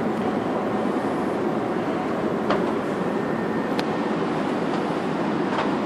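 Steady cabin noise of an Airbus A380 in flight: a constant rush of air with engine drone. Three faint clicks come in the second half.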